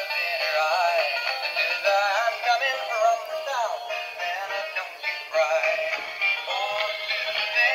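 Toy high-speed train playing a tinny electronic tune with synthesized singing through its built-in speaker.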